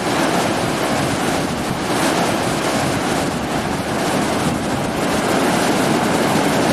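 Turbulent, foaming floodwater rushing and churning, a loud steady wash of water noise.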